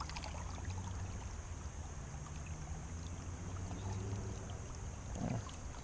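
Creek water rushing steadily past a wading angler, with a low rumble underneath and a few faint ticks.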